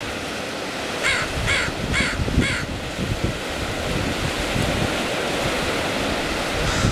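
A crow cawing four times in quick succession, about a second in, over a steady rush of wind and surf.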